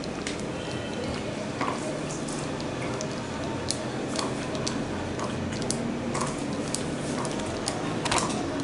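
A baking-paper piping cone being squeezed to pipe lines of strawberry jam over a dessert: faint squishing with scattered light clicks over a steady background hiss, and a louder rustle or clatter near the end.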